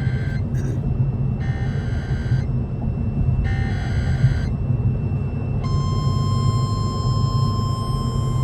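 Emergency Alert System header: three bursts of warbling data tones, each about a second long and a second apart, the first already under way. About five and a half seconds in, the long steady attention tone begins on a single pitch. A steady low rumble runs underneath.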